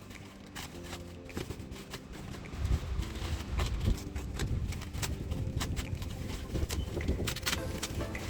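Cardboard shipping box being unpacked by hand: scattered knocks, scrapes and rustles, with a run of heavier thuds a few seconds in.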